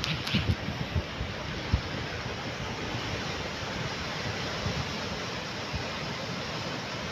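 Steady wash of small waves breaking on a sandy beach below, with a few light wind bumps on the microphone.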